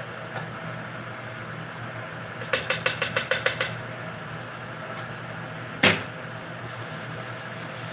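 A rapid run of about ten sharp taps lasting just over a second, then about two seconds later a single louder knock, over a steady low hum.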